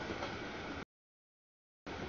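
Two short bursts of rumbling noise, the first lasting just under a second and the second starting near the end, each cut off abruptly into dead silence, like chopped snippets of trackside audio.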